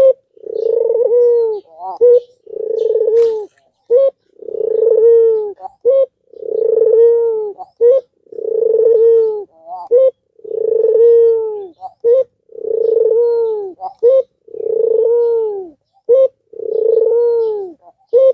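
An albino Barbary dove (puter) coos over and over. Each call is a short clipped note followed by a long, loud coo that arches and falls in pitch, repeating about every two seconds.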